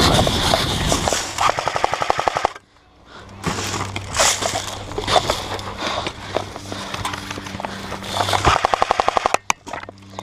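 Airsoft guns firing during a skirmish: scattered single shots and two rapid full-auto bursts of about a dozen shots a second, about a second and a half in and again near the end.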